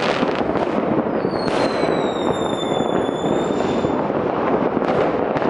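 Many fireworks going off at once across a city, a dense, continuous crackle of distant bangs and pops from rockets, firecrackers and batteries. About a second in, a whistling firework gives a falling whistle that lasts a few seconds.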